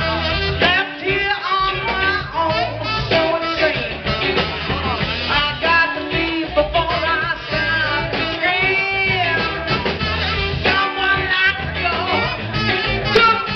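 Live rock and blues band playing: electric guitars, bass guitar and drums, with a woman singing.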